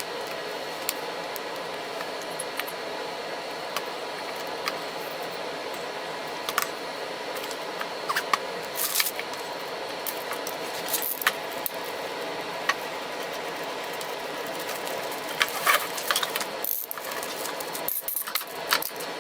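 Scattered light clicks and knocks of small wood pieces being handled and fitted together during a glue-up, busiest near the middle and toward the end, over a steady hum.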